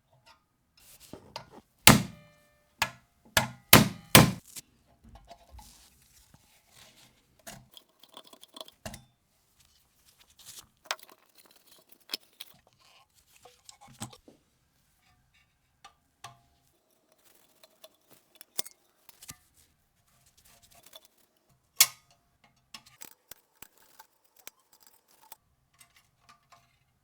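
Small metal parts and tools being handled while an Ensign Ful-Vue camera is taken apart: scattered clicks, clinks and light knocks. The loudest come in a cluster about two to four seconds in, and there is one sharp knock near 22 seconds.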